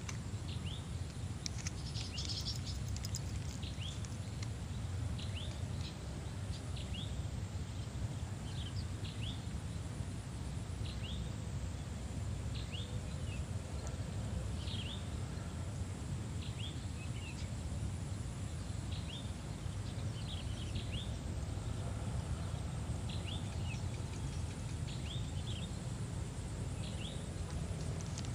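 Birds calling outdoors: short, high chirps repeating irregularly, about one or two a second, over a steady low background rumble.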